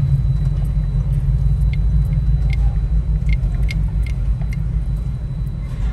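Steady low rumble of a Jeep Wrangler JK's engine and road noise, heard from inside the cabin. A run of even, light ticks, about two and a half a second, comes for about three seconds in the middle.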